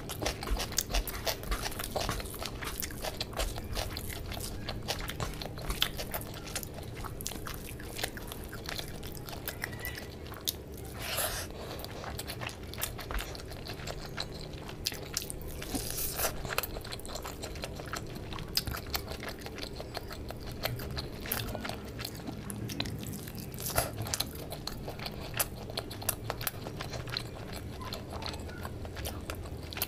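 Close-miked chewing and biting of a person eating rice with chicken curry by hand, full of short wet clicks, with the squelch of fingers working through rice and gravy.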